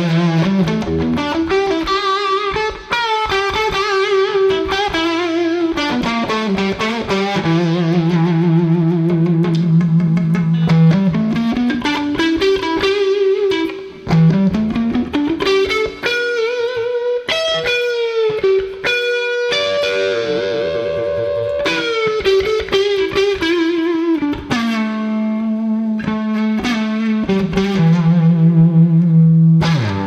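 1980 Gibson ES-335 TD semi-hollow electric guitar played through an amplifier. Melodic single-note lines with vibrato and slides run over long held low notes.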